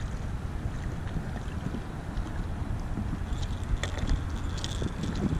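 Wind buffeting the microphone in a steady low rumble, with water lapping at a fishing kayak. A few light clicks come about three and a half to five seconds in.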